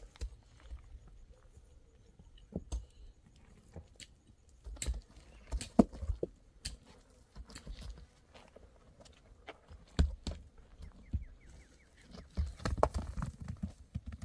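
Irregular knocks, clicks and thuds with shuffling in between, the loudest knocks about six and ten seconds in and a quick cluster of them near the end.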